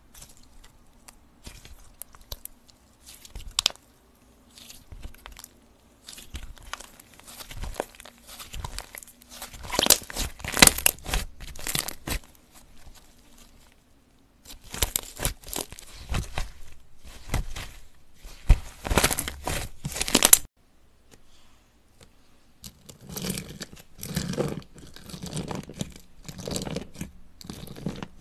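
Slime being squeezed, stretched and poked by hand in several short stretches: close-up wet crackling and clicking, with two brief quiet pauses between them.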